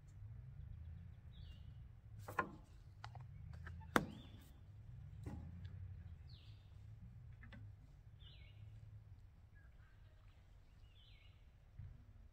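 Knocks and light clatter of coffee-making utensils being handled on a table: a spoon, a plastic container and a kettle. The two loudest knocks come about two and four seconds in. A bird chirps briefly now and then, over a low steady rumble.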